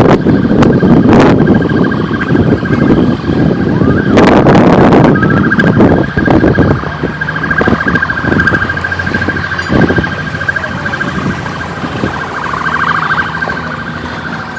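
An electronic alarm sounds a steady, high, rapidly pulsing tone throughout. Loud wind buffeting on the microphone sits over it for the first six seconds or so, then eases.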